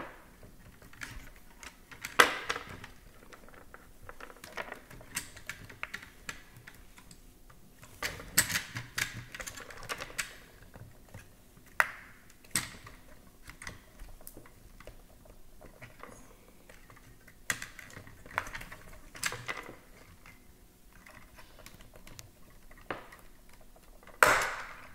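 A thin screwdriver clicking and scraping against the plastic wheel cap of an iRobot Braava 380T mop robot while prying at the cap's clip notches. It makes scattered small plastic clicks and ticks, with a few sharper snaps, one of them near the end.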